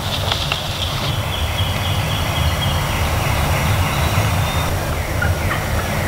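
Wild turkey gobbler gobbling, over a steady low rumble.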